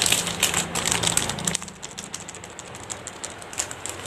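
Clear plastic bags of fishing lures crinkling and rustling as they are handled. A dense run of crackles fills the first second and a half, then they thin out to scattered ones.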